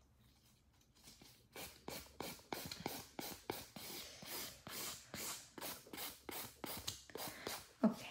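Hand nail file rasping back and forth across a gel nail on a practice finger, in quick even strokes about three a second, starting about a second in.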